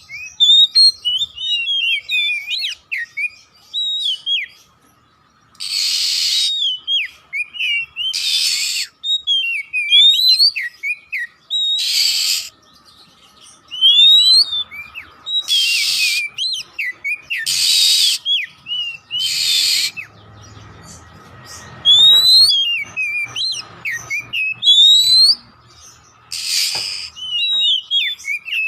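Oriental magpie-robin song: a fast stream of varied whistled notes sliding up and down, broken every few seconds by a harsh rasping call.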